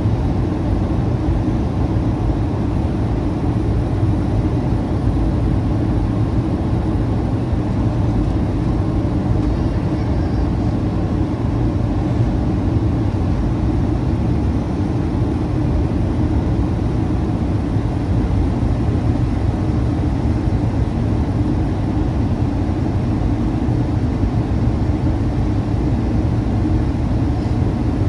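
Steady cabin noise inside a Boeing 737-800 airliner in flight, heard from the front row of seats: an even low rumble of airflow and engines with a faint constant hum.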